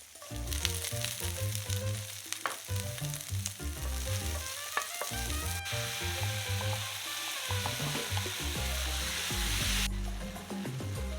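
Food sizzling as it fries in a pan, with Latin background music. The sizzle grows much louder a little past halfway and cuts off suddenly near the end.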